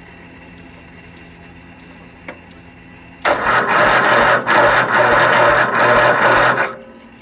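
Electric starter on a Kohler Command 20 V-twin cranking the engine over with the spark plugs in, starting about three seconds in and stopping suddenly after about three and a half seconds. The repaired starter is turning the engine as it should.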